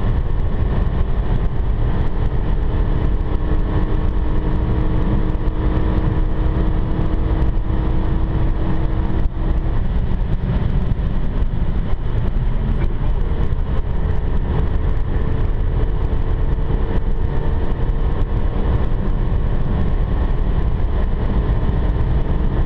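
Renault Mégane RS 265's turbocharged 2.0-litre four-cylinder engine cruising at a steady motorway speed, heard inside the cabin. A low engine hum sits under heavy, even road noise.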